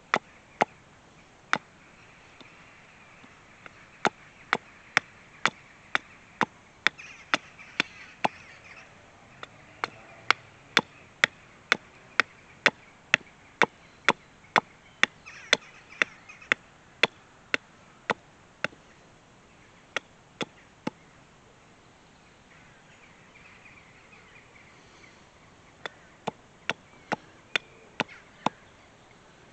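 Hatchet chopping at the end of a stick stood on a wooden chopping block: a string of sharp wooden knocks, at times about two a second, broken by short pauses between runs of strokes.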